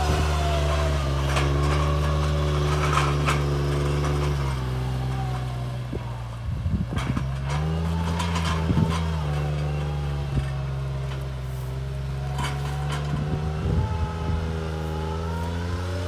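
Alstor 821 miniforwarder's engine running steadily as the 8x8 machine crawls over rough gravel. The engine speed dips and rises a few times. Short knocks and clatters come a few times around the middle and again near the end, as the wheels and chassis go over stones.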